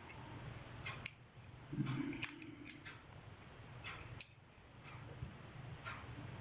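Small metal multitool parts clicking and clinking as they are handled and fitted together during reassembly: a few separate sharp clicks over a faint low hum.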